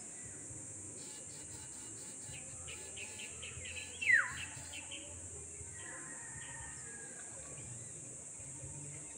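Insects buzzing steadily at a high pitch, with birds chirping; about four seconds in, one louder bird call slides downward in pitch.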